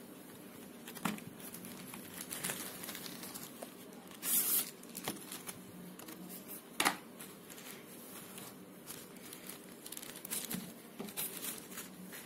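Thin plastic packaging crinkling and rustling as a clear phone case is taken out of its wrap, with scattered light clicks, a louder rustle a little over four seconds in and a sharp click near seven seconds.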